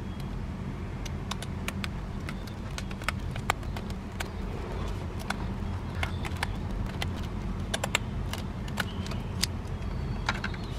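Plastic decorative-edge craft scissors snipping through a paper envelope in many short, crisp clicks, the blades not cutting cleanly. A steady low hum runs underneath.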